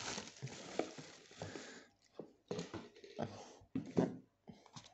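Plastic wrapping crinkling and rustling as it is handled: a steady rustle for about two seconds, then several short separate crinkles.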